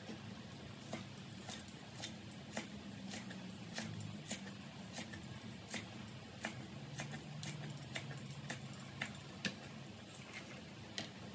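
Cleaver chopping green onion stalks on a wooden cutting board: sharp knocks at about two a second.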